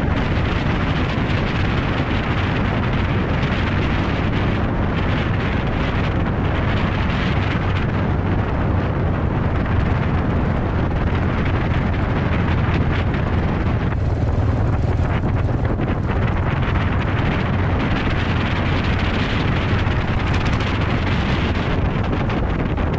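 A dual-sport motorcycle riding a gravel road: steady wind noise buffeting the microphone over the bike's engine running at a steady cruise.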